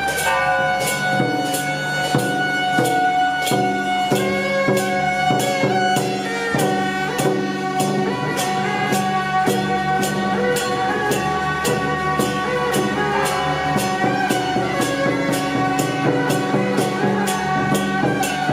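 Procession music with held melody notes over a steady beat of sharp percussion strikes, about three a second.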